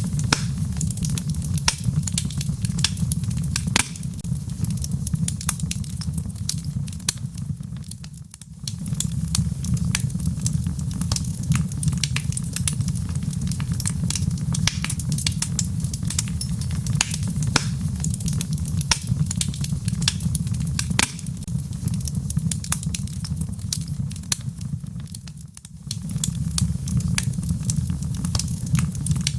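Log fire burning in a fireplace: a steady low rumble of flames with frequent sharp crackles and pops from the wood. The sound fades down briefly and comes straight back twice, about eight seconds in and again near twenty-six seconds.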